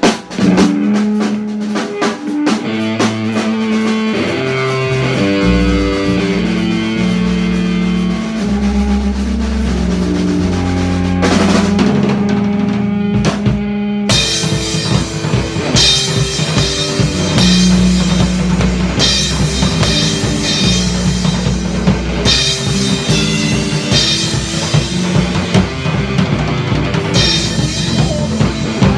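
Live rock band playing: electric guitar and bass guitar over a drum kit. About halfway through, the drums come in fuller with crashing cymbals and the whole band plays louder.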